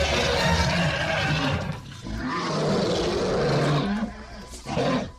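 Monster roar sound effect: two long growling roars, one after the other, then a shorter one near the end.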